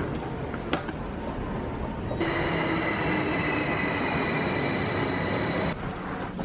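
Double-deck passenger train running along a station platform with a noisy rumble. About two seconds in, a high squealing whine of several steady tones sets in, and it cuts off abruptly near the end.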